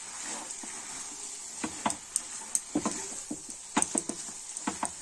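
A silicone spatula stirring and scraping cauliflower-and-potato stuffing in a kadhai, giving irregular taps and scrapes. Under it runs a steady high sizzle of the mixture frying over the flame.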